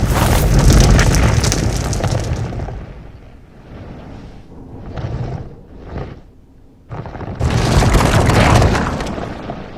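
Cartoon sound effects of loud, deep explosive booms with a rumble. One long boom fades out over about three seconds, two short bursts follow, then another starts suddenly about seven seconds in and fades.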